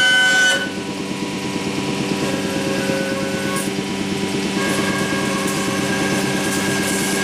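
CNC router spindle with a profile cutter machining a door rail, a loud high whine that drops away sharply about half a second in as the cut ends. The machine then keeps running with a steady lower hum, and a fainter spindle whine comes back near the end.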